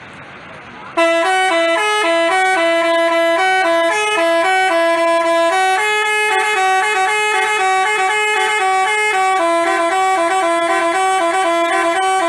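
Multi-tone 'telolet basuri' bus horn playing a quick melody of stepped notes that jump back and forth between a few pitches. It starts about a second in after a moment of quieter background noise, and plays on without a break.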